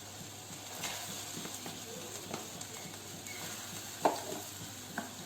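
Potato tikkis (aloo tikki patties) shallow-frying in hot oil in a pan, a steady sizzle. A few light knocks or clicks come through it, the loudest about four seconds in.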